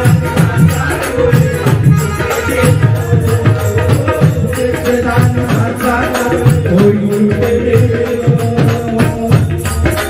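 Live devotional bhajan music with no singing: an electronic keyboard holds a melody over a quick, steady rhythm of hand drums, with rattling, jingling percussion on top.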